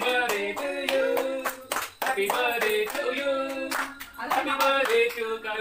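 Hands clapping in a steady rhythm along with singing voices.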